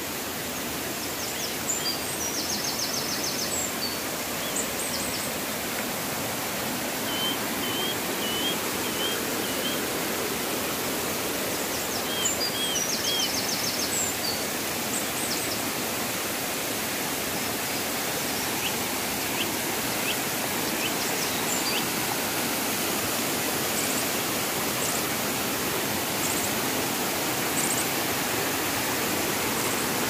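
Steady rush of a waterfall and a stream cascading over rocks, with small birds chirping now and then over it.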